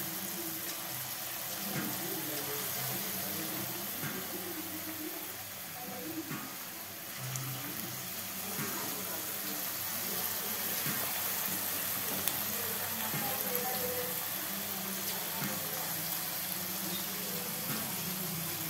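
Marinated chicken pieces frying in hot vegetable oil in a kadai: a steady, even sizzle.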